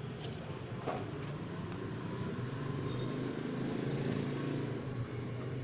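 A steady low background hum and rumble, with a few light clicks about a second in, likely from a spoon stirring slime mixture in a cup.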